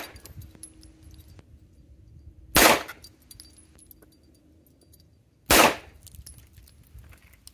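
Glock 17 9mm pistol fired in slow, aimed single shots: one right at the start, then two more about three seconds apart. Each sharp shot is followed by a few faint clinks.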